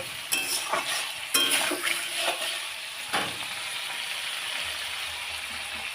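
Food frying in a pan with a steady sizzle. A stirring utensil knocks and scrapes against the pan several times in the first three seconds.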